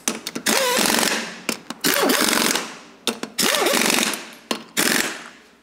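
Impact wrench tightening the wheel nuts of a Rolls-Royce Silver Cloud III wheel, running in several short rattling bursts with brief pauses between them.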